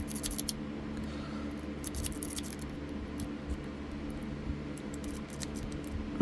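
Metal lock-pick rake scraping and clicking across the pins inside a lock as it is worked back and forth, with a quick flurry of ticks at the start and scattered clicks after. A steady low hum runs underneath.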